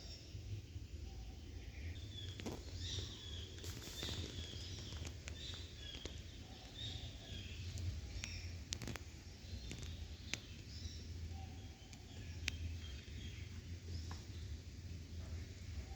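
Kittens purring, a low steady rumble, with scattered faint high chirps and a few sharp light clicks.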